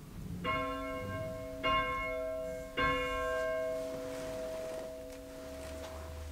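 A bell struck three times, about a second apart, each strike ringing on and slowly dying away: the consecration bell rung at the elevation of the chalice during the Eucharistic prayer.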